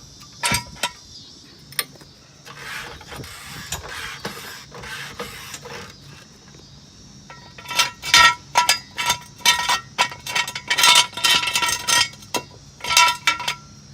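Floor jack and ratcheting steel jack stands being worked under a car: a few soft scrapes, then a quick run of sharp metallic clicks and clanks that ring, loudest in the second half.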